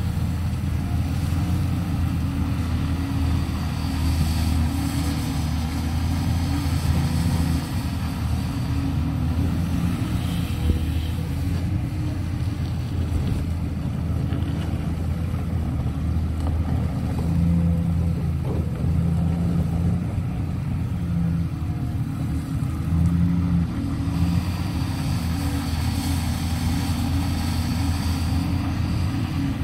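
Caterpillar 326F hydraulic excavator's six-cylinder diesel engine running steadily under work while the machine digs and swings its bucket. It is a low, even drone that swells a few times.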